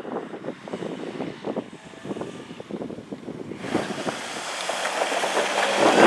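Car running on the race track, with a rapid rattling clatter, then a rising rush of noise from a little past halfway as it comes closer.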